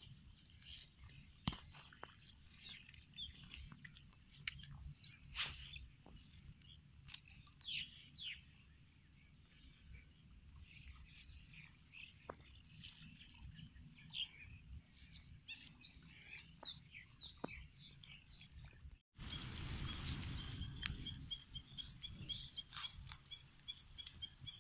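Faint open-field ambience: scattered bird chirps and a steady high-pitched whine. About three-quarters of the way through, after a brief dropout, a louder rushing noise sets in with a rapid series of high pips.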